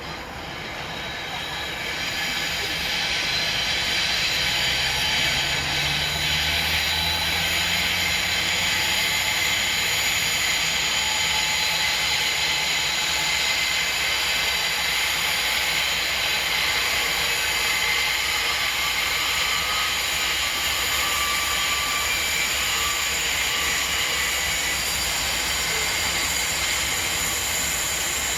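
Freight train passing close by, the sound swelling over the first few seconds. A low locomotive engine hum is strongest a few seconds in, followed by a long steady run of wagons rolling on the rails with a high-pitched steady squeal.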